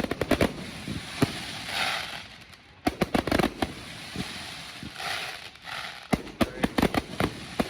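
Aerial fireworks display bursting: volleys of sharp bangs come right at the start, about three seconds in and again near the end, with hissing crackle between the volleys.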